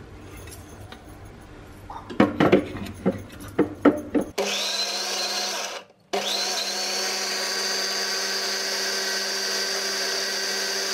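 Electric mixer grinder with a stainless steel jar grinding wet masala paste. A few knocks as the jar and lid are handled, then the motor starts with a rising whine about four seconds in. It cuts out briefly after another second or two, then runs steadily again.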